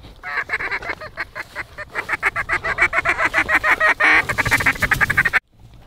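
Duck calling in a fast, even chatter of about ten short notes a second, building louder toward the middle and stopping abruptly about five seconds in.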